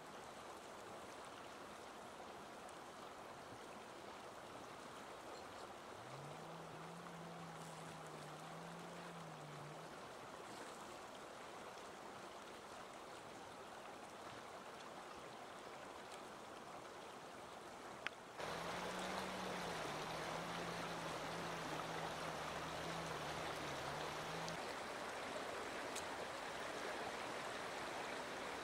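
A fast-flowing river rushing steadily, louder in its second part, where a click comes just before the water sound jumps up. Twice a low, steady hum sounds for a few seconds over the water.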